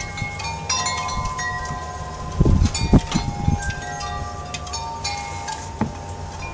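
Chimes ringing, struck irregularly at many different pitches, their tones overlapping as they fade. A cluster of low thumps, the loudest sounds, comes about halfway through.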